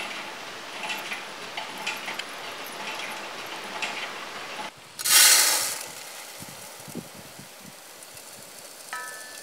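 Quick clicking and scraping of goat intestine being cut on a boti blade. A little past halfway, raw rice is poured into an aluminium pot: a loud rush of grains hitting the metal, which falls away within a second to a softer, steady pouring sound.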